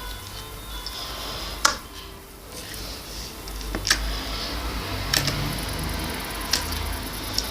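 Slime being pressed and squeezed by hand, giving about five sharp pops of trapped air a second or so apart, over a low hum.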